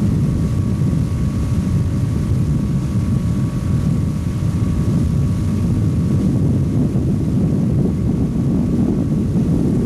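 75 hp Chrysler outboard motor running steadily at towing speed, heard from aboard the boat, with wind on the microphone. The sound is a steady low rumble.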